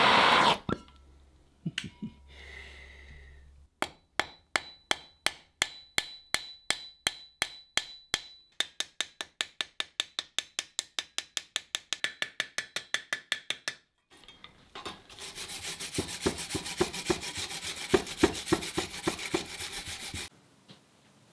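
Rubbing strokes worked over forged steel by hand. After a loud noise that cuts off about half a second in, the strokes come evenly at about four to five a second for some ten seconds, then give way to a faster, denser scrubbing that stops shortly before the end.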